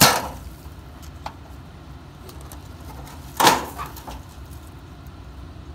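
Two loud clattering knocks, one right at the start and one about three and a half seconds later: a sheet of tin being handled and dropped onto the ground.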